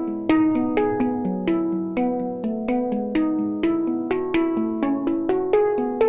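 Sampled handpan from Chris Hein's Octa library (the 'Hand Pan Finger' patch) playing a melodic line of finger-struck notes, about two a second, each ringing on into the next. It plays through the PSP InfiniStrip channel strip switched on, whose opto compressor smooths the note attacks in a subtle, natural way.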